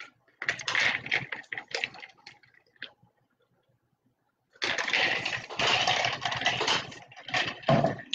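Handling noises of a trading-card pack and its plastic wrapping: irregular bursts of rustling and crinkling, a short cluster at the start and a denser run after a pause of about two seconds.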